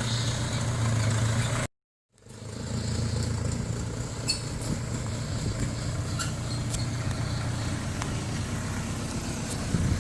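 Diesel engine of a Toyota FJ40 running steadily, with a few light rattles. The sound cuts out abruptly for about half a second near two seconds in, then resumes.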